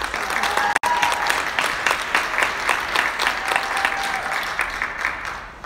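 Audience applauding, with a couple of brief cheers; the applause dies down near the end.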